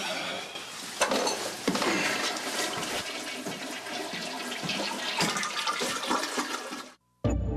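Water rushing and gushing steadily, with louder surges about a second in and again soon after, then cutting off abruptly near the end. Music starts right after a brief silence.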